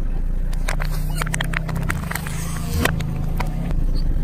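Plastic bottles of coloured jelly cracking and popping under a slowly rolling car tyre over a car engine's low steady hum: a quick series of sharp cracks for about three seconds, the loudest near the end.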